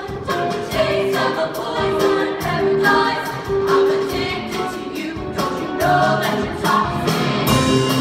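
All-female high school show choir singing a pop number in unison and harmony, over accompaniment with a steady beat.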